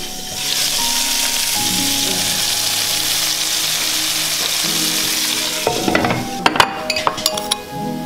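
Sausages frying in an uncovered pan, a loud steady sizzle that swells about half a second in as the lid comes off. Near the end the sizzle stops and a run of sharp clicks and scrapes follows.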